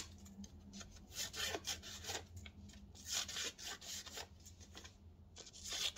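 Scissors cutting a sheet of printer paper: a run of quiet, irregular snips with the paper rustling between them.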